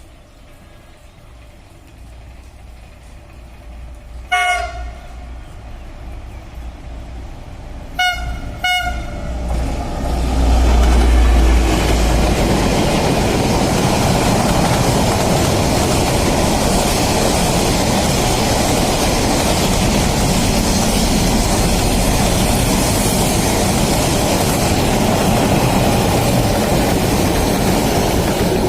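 Train horn sounds one blast about four seconds in, then two short toots about four seconds later, as a train comes up. The train then passes close by, with a loud steady rumble of wheels on the rails that lasts to the end.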